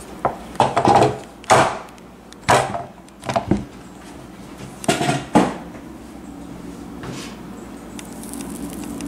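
A handful of knocks and clunks as a loaf of homemade soap and its mould are handled and set down on a worktop, ready for cutting, with a brief squeak partway through.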